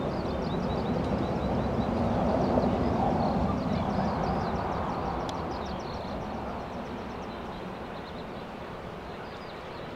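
Four-engined Airbus A380's jet engines rumbling as the airliner moves along the runway, swelling about two to three seconds in and then slowly fading. A bird chirps rapidly over it throughout.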